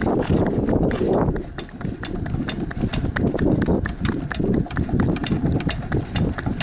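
Miniature horse's hooves clip-clopping fast on tarmac as it runs pulling a cart, a quick run of sharp hoof strikes over a steady low rumble.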